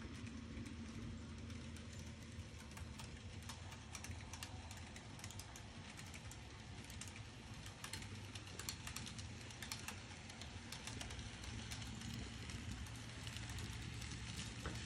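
N-scale model train of tank cars running along the track: a steady low hum with many light, irregular clicks from the wheels on the rails.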